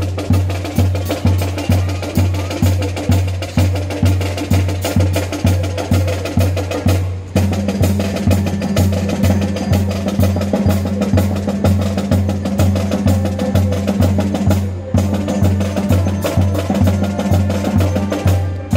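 Brass band playing a lively tune over a steady drum beat, about two and a half beats a second, with two brief breaks.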